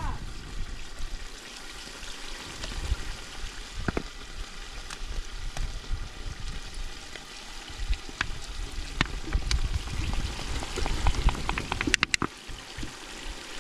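Sliced onions frying in oil in a large aluminium pot, a steady sizzle with a low rumble beneath. Scattered sharp clicks and taps, with a quick cluster of them about twelve seconds in.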